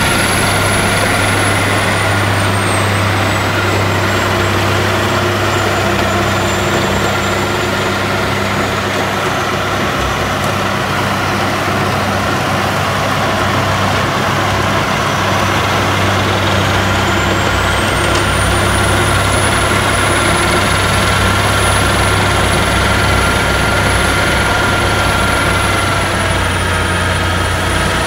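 Heavy snow-clearing vehicle's diesel engine running steadily, with a high whine that slowly drops in pitch and climbs back up about two-thirds of the way through.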